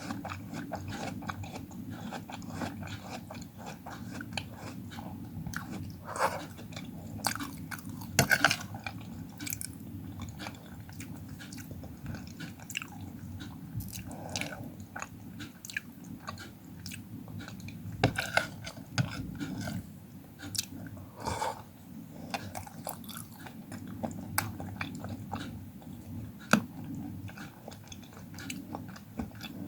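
Close-miked eating of fresh fruit: steady wet chewing and mouth sounds, with a few louder crisp bites or snaps spread through.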